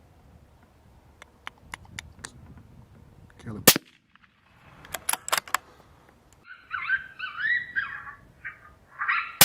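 Gunshots: one loud shot about three and a half seconds in, then several quick shots around five seconds. From about six and a half seconds a hit coyote yelps and whines in high, wavering cries, and another shot cracks at the end.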